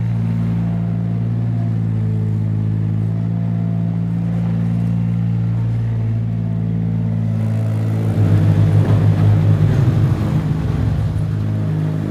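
Steady, low, engine-like drone from a toy crawler excavator as it climbs onto a toy pickup's bed. About eight seconds in the drone starts to flutter and pulse for a few seconds, then settles back.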